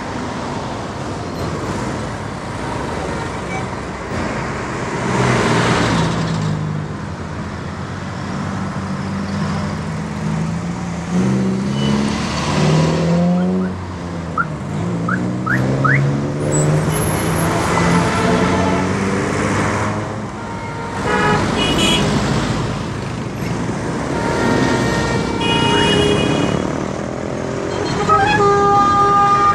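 Busy road traffic: steady vehicle noise with an engine rising and falling in pitch through the middle, and several short car horn toots in the second half, the last near the end.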